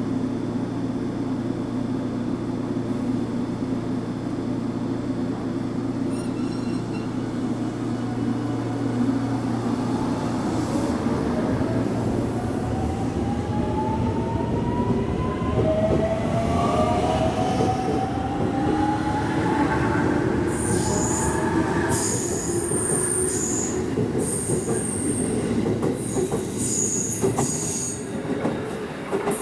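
Electric multiple-unit train pulling out of the station. Its traction motors hum steadily at first, then whine in rising pitch as it accelerates from about a third of the way in. High wheel squeals come and go in the last third.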